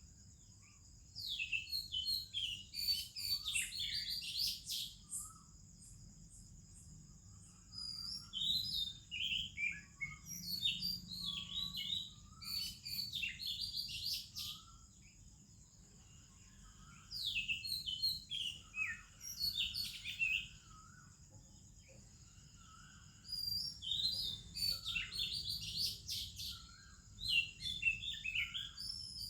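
Oriental magpie-robin singing: groups of quick, varied whistled and warbled phrases, each lasting a few seconds with short pauses between, about six groups in all. Beneath them runs a steady high-pitched drone.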